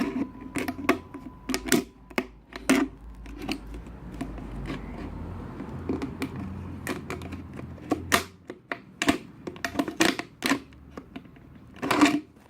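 Plastic drinks bottle being handled and cut with scissors: irregular sharp clicks and crackles of the stiff plastic and the blades.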